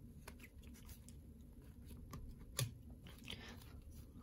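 A stack of trading cards being thumbed through in the hand: faint clicks and light scrapes of card edges sliding over one another, with one sharper click about two and a half seconds in.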